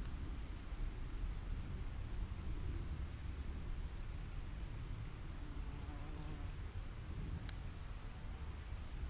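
Insects chirring: a thin, high, steady buzz that breaks off and resumes, over a low rumble, with one sharp click about seven and a half seconds in.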